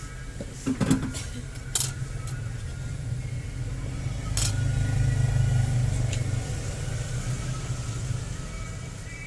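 A low, engine-like hum that swells and then fades, with a few sharp clicks in the first half.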